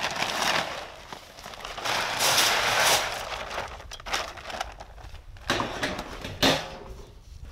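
Chicken feed poured from a paper feed bag into a galvanized metal trash can: a rushing hiss of feed hitting the metal, with rustling and scraping of the bag, and a sharp knock near the end.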